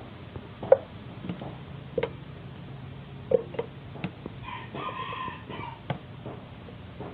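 Raw chicken drumsticks set down one at a time in a nonstick pot, making a short knock every second or so. A rooster crows once, about four and a half seconds in, for a little over a second.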